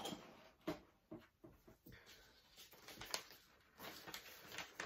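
Faint, scattered rustles and light taps of paper and cardboard being handled as a letter is taken out of a box.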